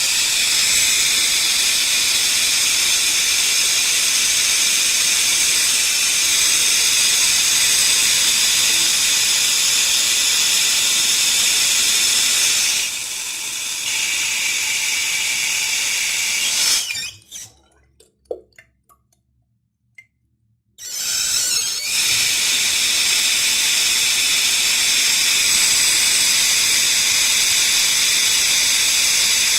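Water tap running in a steady, full hiss, a little softer for a few seconds past the middle, then shut off with a few drips before it runs again about three-quarters of the way through.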